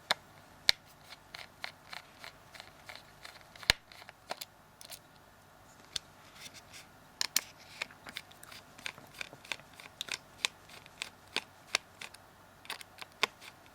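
A small Phillips screwdriver working tiny screws out of a Samsung Galaxy S3's plastic frame: many light, irregular clicks and taps of tool and screws against the phone.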